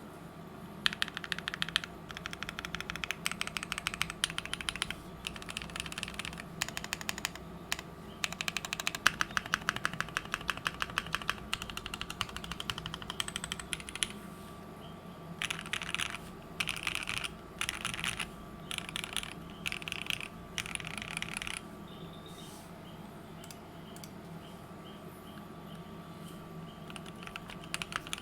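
Typing on a custom mechanical keyboard with a brass plate, lubed Gateron Red Ink linear switches and PBT keycaps: rapid runs of keystrokes in bursts with short pauses. The typing stops about three-quarters of the way through, leaving only a few faint key taps.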